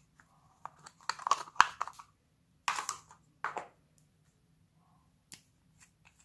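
Small hard plastic flower-shaped case being handled and opened to take out a nail polish bottle. A cluster of plastic clicks and crinkling comes in the first two seconds, then two louder crackling rustles around three seconds in, then a few light clicks.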